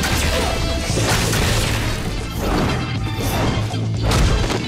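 Dramatic TV-score music with a sustained bass, overlaid with several hard crash and impact sound effects from a superpowered fight.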